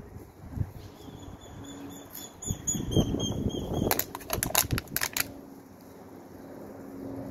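A small bird chirping a short high note over and over, followed about four seconds in by a quick run of sharp clicks lasting about a second. Faint rustle of handling and wind underneath.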